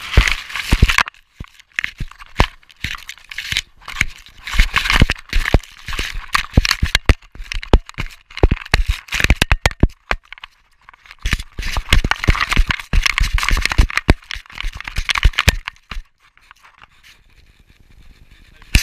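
Leaves, twigs and grass brushing and crackling against a GoPro strapped to a running dog, with many sharp knocks and clatters from the camera housing as the dog moves. The rustling dies down for the last few seconds.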